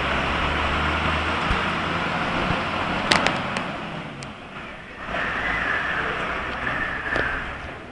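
Fire truck engine running as the truck moves off down the street, with a sharp knock about three seconds in.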